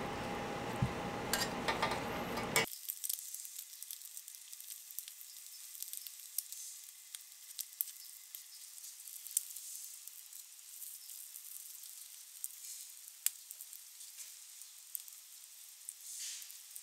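Butter-cooked toast ingredients sizzling on a flat griddle: a steady high crackle with scattered sharp pops. For the first two and a half seconds a fuller steady background noise with a few clatters lies over it, then cuts off suddenly.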